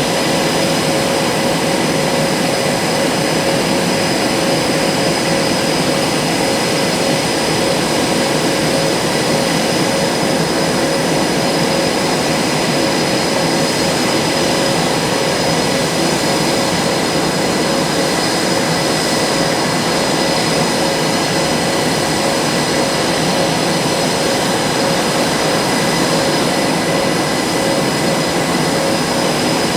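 Blue Angels F/A-18 Super Hornet jet engines running steadily at close range, a loud, even rush with a high, unchanging turbine whine.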